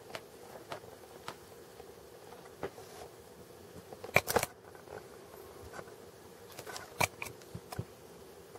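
Small clicks and scratches from a kitten chewing and pawing a fuzzy fabric toy right at the microphone, with a louder cluster of clicks about four seconds in and a sharp click about seven seconds in.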